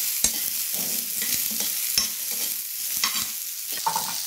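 Eggplant pieces sautéing in hot oil in a pan: a steady sizzle, with a metal ladle stirring them and knocking against the pan now and then.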